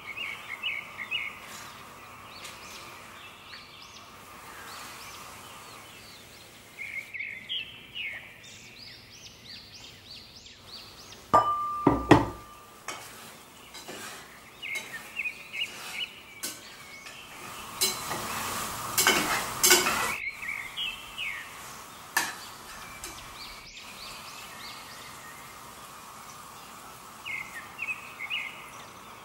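Metal utensils clattering against cookware, loudest in a sharp knock about twelve seconds in and a longer clatter a few seconds later, with short bursts of birds chirping every few seconds in the background.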